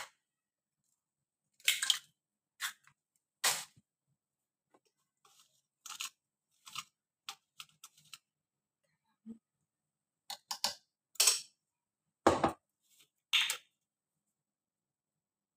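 Scattered clicks, taps and knocks of food being handled and dropped into a plastic food-chopper bowl, irregular and a second or so apart, with a heavier knock about twelve seconds in and quiet after about fourteen seconds.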